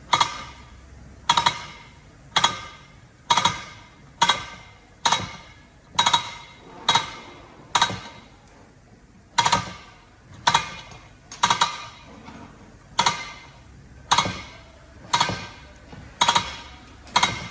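Adjuster mechanism of a heavy-duty truck disc brake caliper being turned round with a tool, giving a sharp metallic click with a brief ring about once a second, with a short pause midway.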